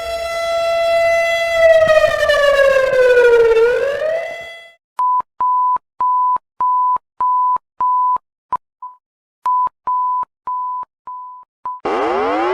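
Emergency alert siren tone, held steady, then sliding down in pitch, rising briefly and cutting out. A run of about fourteen identical high beeps follows, mostly evenly spaced with a short break partway through. Near the end a new siren starts, sweeping up in pitch.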